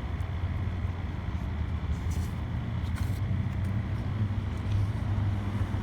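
Car engine running with a steady low hum, heard from inside the car.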